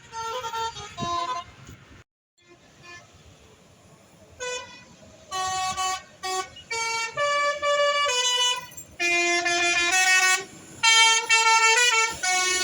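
Bus 'telolet' horn, a multi-tone musical air horn, playing a tune of short held notes that jump in pitch from one to the next. The notes break off about two seconds in, then start again after a quiet stretch and carry on in repeated melodic phrases.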